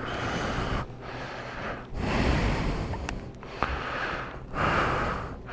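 A person breathing heavily close to the microphone, about four breaths in a row, with a couple of small clicks a little past halfway.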